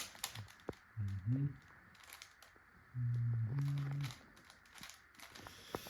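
Plastic Rubik's cube being turned quickly by hand: a string of light clicks and rattles as the layers are twisted. A voice makes short sounds twice in between.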